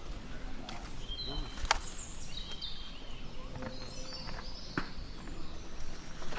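Outdoor treetop ambience with small birds chirping off and on, and two sharp knocks, about two seconds in and near the end, from handling on the palm.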